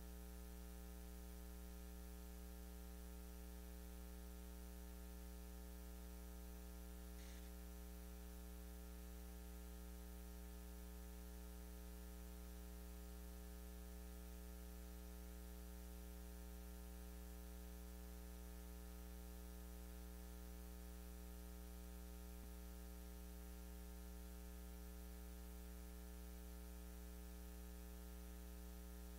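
Steady electrical mains hum with a faint hiss, unchanging throughout, with one brief faint sound about seven seconds in.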